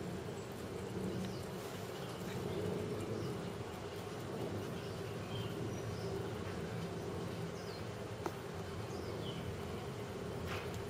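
A steady low hum, with faint soft crunching as a lop-eared rabbit chews lettuce and spinach leaves. There is a single small click about eight seconds in.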